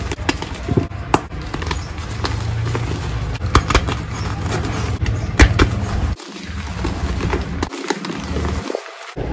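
Reformed gym chalk being crushed and crumbled between the hands: irregular sharp crunches over a low, steady rub of powder. The loudest crunch comes a little past halfway.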